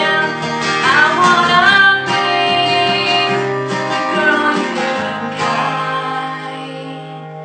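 A woman singing with a strummed acoustic guitar; the voice holds long notes and then drops out about halfway, leaving the guitar strumming on, gradually getting quieter.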